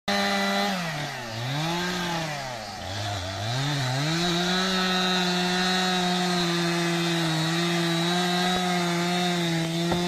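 Two-stroke chainsaw making a felling cut into the trunk of a large tree. The engine speed dips and recovers several times in the first four seconds as the chain bogs in the wood, then holds steady at high speed through the cut.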